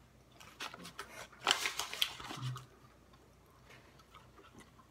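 Rustling and crinkling of a Big League Chew shredded-gum pouch as the last of the gum is pulled out by hand: a run of rustles lasting about two seconds.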